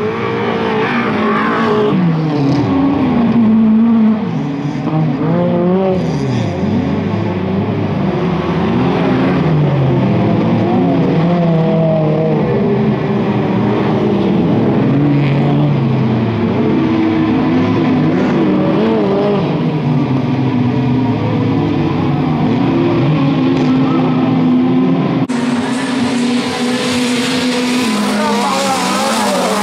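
Several autocross touring cars racing on a dirt track, their engines revving hard, the notes rising and falling over and over with throttle and gear changes.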